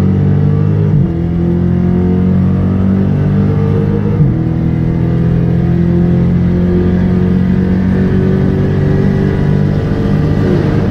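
Muscle car's V8 engine heard from inside the cabin, pulling hard at highway speed with its pitch climbing slowly and two brief gear changes, about one and four seconds in.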